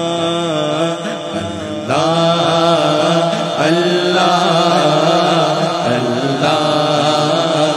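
Male naat reciter singing long, sliding melismatic phrases into a microphone, unaccompanied by instruments, over a steady low drone. The voice grows louder about two seconds in.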